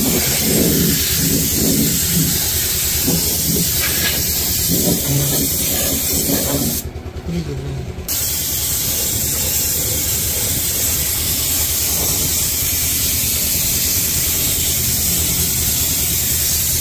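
Compressed-air spray gun hissing steadily as it sprays anti-rust underbody coating. The spray cuts off for about a second some seven seconds in, then starts again.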